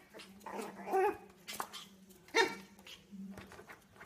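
Yorkshire terrier puppy giving short, high yapping barks, one about a second in and a sharper one about two and a half seconds in.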